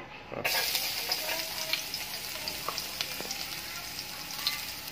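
Chopped garlic dropped into hot oil in a nonstick frying pan. A sizzle starts suddenly about half a second in and settles into a steady hiss with scattered small crackles.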